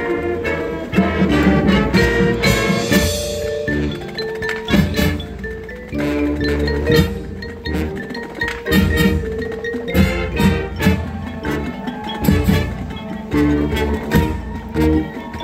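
High school marching band playing its field show, with the front ensemble's marimbas and other mallet percussion prominent among the drums and winds.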